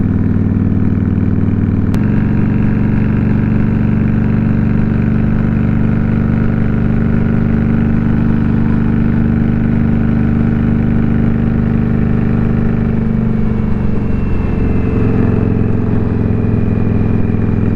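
Indian Scout Bobber's liquid-cooled V-twin engine running at a steady cruise, heard from the rider's seat. The engine note shifts abruptly about two seconds in, sags about three-quarters of the way through, then steadies again.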